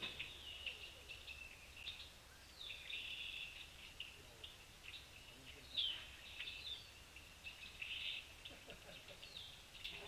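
Birds chirping and calling: short high chirps coming in clusters and overlapping, with one louder call slurring downward about six seconds in.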